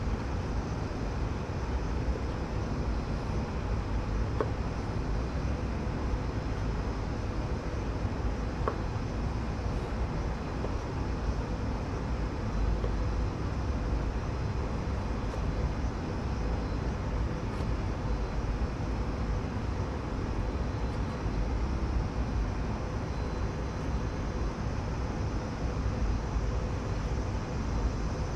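Steady, even background rumble with a faint steady hum, and two faint clicks about four and nine seconds in.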